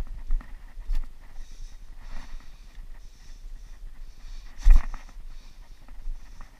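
Footsteps on a dirt and rock trail, with the walker's breathing close to the microphone and a sharp knock about four and a half seconds in.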